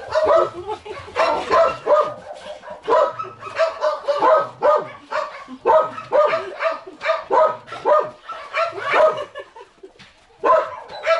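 Excited dogs giving quick short yelps and barks, about two a second, while jumping up on a person, with a brief lull near the end.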